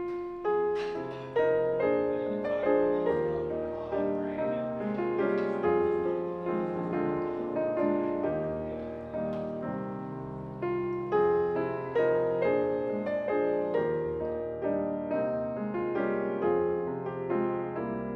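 Background piano music: a steady run of struck notes and chords, each dying away before the next, with a gentle rhythm.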